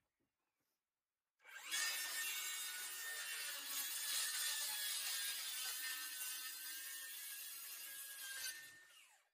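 Handheld circular saw starting up about a second and a half in and cutting through a sheet of board for about seven seconds, then fading out near the end.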